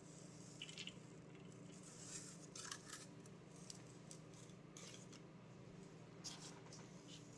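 Near silence: a steady low room hum with a few faint, brief clicks and rustles of small handling noises.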